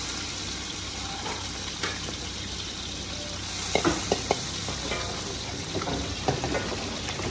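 Oil sizzling steadily in an aluminium wok as bánh xèo filling of pork and shrimp fries. A few sharp clicks of a metal spatula against the wok come about halfway through and again near the end.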